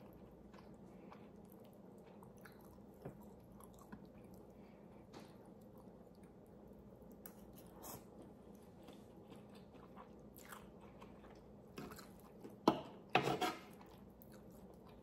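Quiet chewing and mouth sounds of a person eating pancit noodles and beef stew, with a short noodle slurp about eight seconds in and a few louder sharp sounds near the end.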